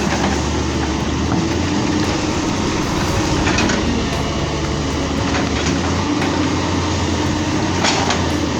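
Large hydraulic excavator working: its diesel engine running steadily under a dense metallic clatter, with two brief noisy bursts about three and a half seconds in and near the end.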